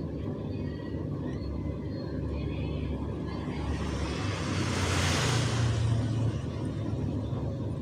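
Steady low traffic rumble, with a vehicle passing close by: a broad whoosh that swells from about three and a half seconds in, peaks near five seconds and fades away.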